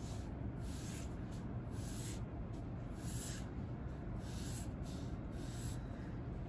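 Graphite pencil scratching across paper in a series of separate curved strokes drawn out from a centre point.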